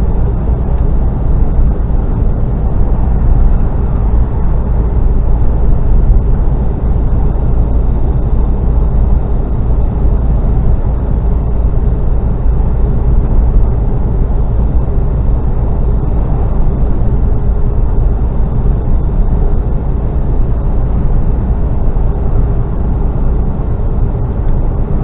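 Mercedes Actros lorry driving along, heard from inside the cab: a steady, low drone of diesel engine, tyre and wind noise.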